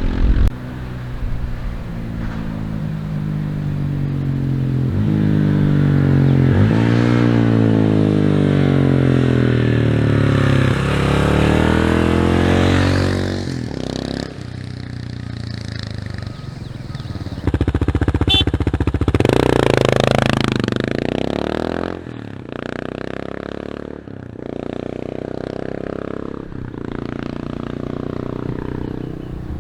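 Single-cylinder engine of a 2022 Kawasaki KLR650 running through a Yoshimura RS-2 exhaust while riding. The engine note climbs in pitch under acceleration, falls away, then surges hard again about two-thirds of the way in. Several short dips follow as it shifts through the gears.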